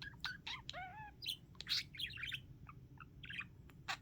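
Pet budgerigar's soft warbling chatter while dozing: a rapid string of short chirps, clicks and small whistled glides.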